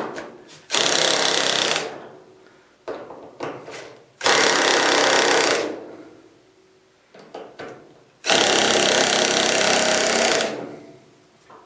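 Cordless power driver running in three short bursts, each about one to two seconds long, tightening the wire screws on a dryer's terminal block, with light handling knocks in between.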